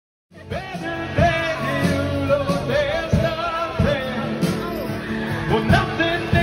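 Rock-and-roll song with a singer and a band with drums, starting right after a brief dropout of the sound.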